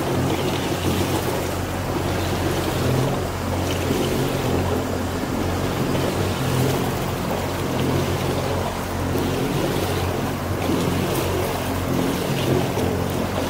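A motorboat's engine runs steadily with a low hum, over a continuous rush of water along the hull.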